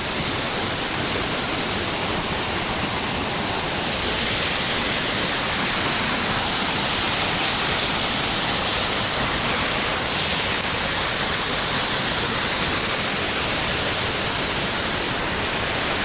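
A waterfall pouring over a rock ledge into a gorge: a steady rushing of falling water that grows brighter and hissier about four seconds in.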